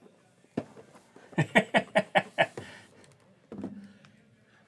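A short burst of laughter, about six quick 'ha' pulses, with a click before it and a thud near the end.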